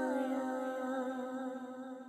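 Naat vocal in Urdu: the voice glides down onto a long held closing note that wavers slightly and fades away.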